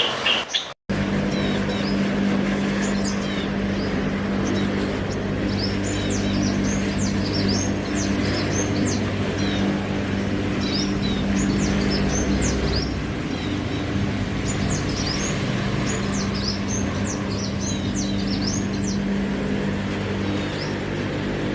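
Many short, high-pitched bird chirps from small birds, scattered throughout, over a steady low machine hum. A brief dropout comes just under a second in.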